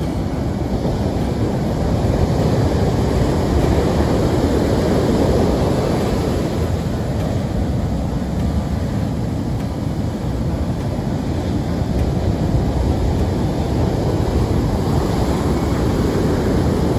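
Ocean surf breaking and washing up a sand beach, a steady heavy rushing that swells and eases with the waves, with wind buffeting the microphone.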